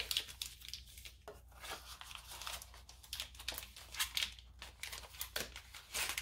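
Paper wrapping of a shampoo bar being unfolded and folded by hand, crinkling and rustling in short, irregular crackles.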